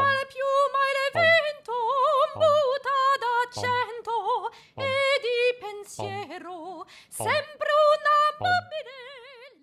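Soundtrack music: a high voice sings a wordless melody with a wide, wobbling vibrato and swooping slides between notes, over a soft low beat about every 1.2 seconds.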